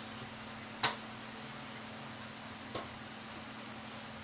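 Groceries being handled in a cardboard box: a sharp knock about a second in and a softer one near three seconds, as items are picked up and set down, over a steady low hum.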